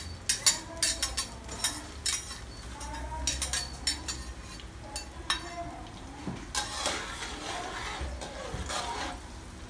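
A metal ladle clinks and scrapes against a small bowl and a stainless steel wok as chopped garlic goes into hot butter and oil. About six and a half seconds in, the garlic sizzles louder as it is stirred in the oil.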